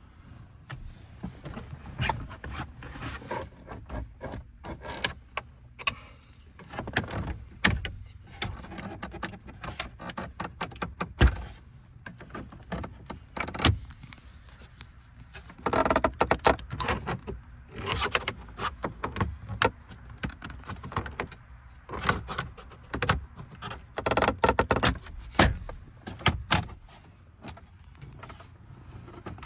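Plastic dashboard trim on a pickup being pried and worked loose by hand: irregular clicks, knocks and rattles, with a few denser stretches of scraping and handling noise.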